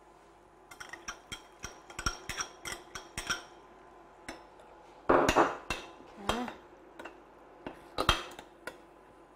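Metal spoon clicking and scraping against a small glass bowl as beaten egg is scraped out of it, then a louder scraping clatter of the spoon in a stainless steel pot about five seconds in, with a few more taps near the end.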